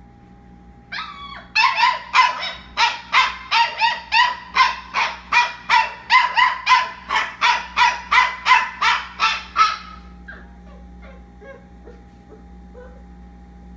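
Labradoodle puppy crying: a short whine, then a long run of rapid high-pitched yelps, about two or three a second for some eight seconds, trailing off into faint whimpers. A faint steady hum runs underneath.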